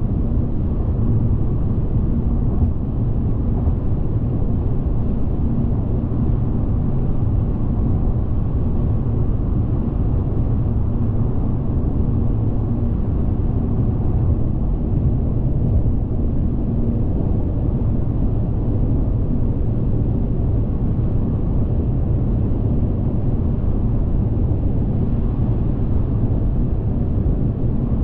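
A car driving at motorway speed: steady, unbroken road and engine rumble, mostly low in pitch, with a faint steady hum.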